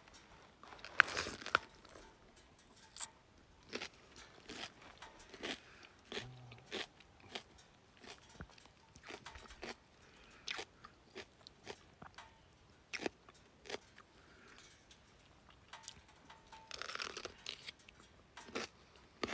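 A person biting into a crisp snack cucumber and chewing it: a crunchy bite about a second in, wet crunching chews in between, and another bite near the end.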